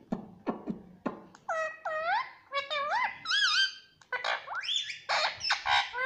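Indian ringneck parakeet (rose-ringed parakeet) vocalising: a few sharp clicks, then a string of swooping, looping whistled calls with raspy chatter mixed in near the end.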